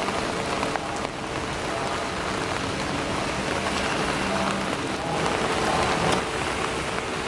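Steady rain falling on broad lotus leaves, with a few sharper single drop hits standing out.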